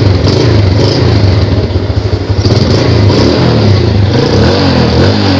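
Yamaha Jupiter Z single-cylinder four-stroke engine running, its pitch rising and falling a little as the throttle is worked, with a calm, even sound and no dak-dak-dak knock: the starter one-way clutch's broken bolts have been replaced.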